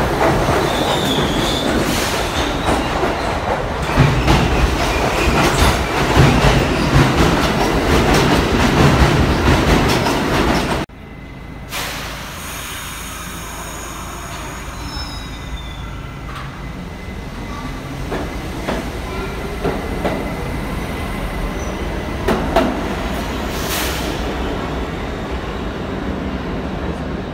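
New York City subway train of R68 cars passing through a station at speed, a loud rumble with wheels clattering over the rail joints. About eleven seconds in it cuts suddenly to a quieter, steady rumble of trains in another station, with faint wheel squeals and a few clicks.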